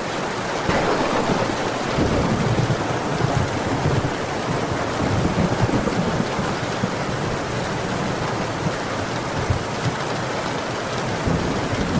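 Heavy rain falling steadily, with a low rumble of thunder that builds about a second in and dies away over the next several seconds.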